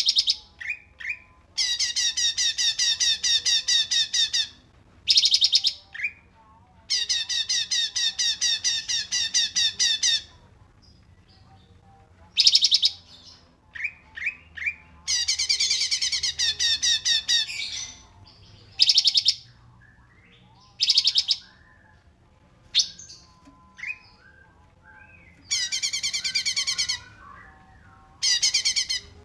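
Songbirds singing for a bird-training recording: long, fast trills of repeated high notes, each lasting one to three seconds, alternating with short single chirps.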